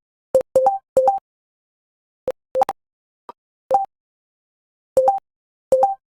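Keystroke sound effects from the Hancom Typing Practice program: short two-tone blips, a low note then a higher one, coming irregularly with each key pressed. Some come in quick pairs, with pauses of about a second between groups.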